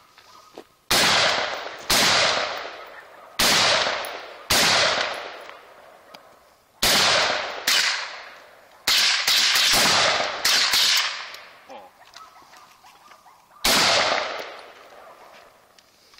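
AR-15 rifle in .223/5.56 firing about ten single shots at uneven spacing, mostly a second or so apart with a longer gap near the end. Each shot is followed by a long echo that dies away over a second or two.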